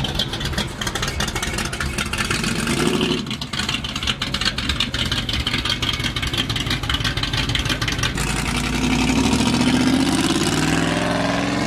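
Classic Ford Fairlane's engine running through its exhaust as the car pulls out, then accelerating about eight seconds in, the engine note rising in pitch.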